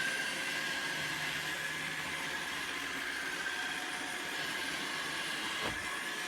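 Roomba robot vacuum running: a steady whirring motor and brush noise with a constant high whine, and a brief bump near the end.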